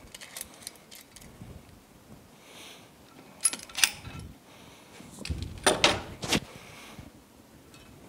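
Light metal clicks and clinks as a valve spring compressor and a small pick work on an aluminium outboard cylinder head, taking out valve keepers and valves. A few faint ticks come in the first second, and louder clinks come in two short clusters, about three and a half seconds in and again around six seconds.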